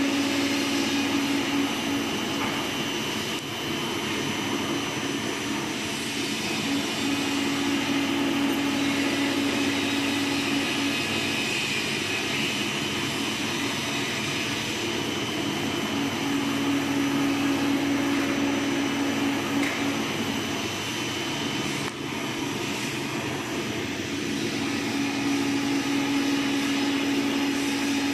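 Double-movement (3D) conical drum powder mixer running: a steady motor-and-gearbox hum with a low drone that swells and fades about every eight seconds.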